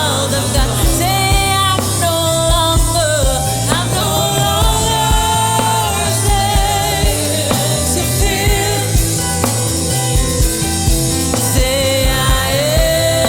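Contemporary worship song: a singer holds long, wavering notes over a band with a steady drum beat.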